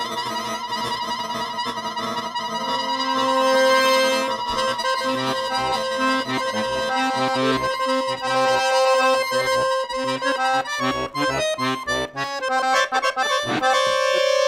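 Button accordion playing long, sustained chords that give way, about halfway through, to a choppy passage of rapid short notes and stabs.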